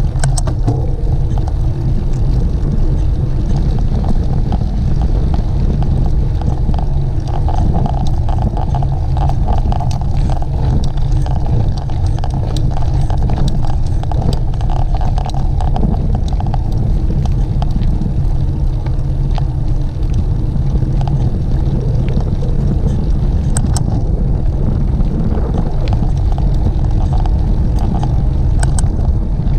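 Wind buffeting a moving camera's microphone as a rough low rumble, with small clicks and rattles scattered through it, as from a bicycle riding over rough ground.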